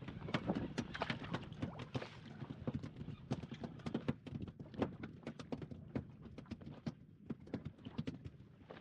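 Rapid, irregular clicks and light knocks, several a second, on and around a small inflatable fishing boat while a hooked fish is being reeled in.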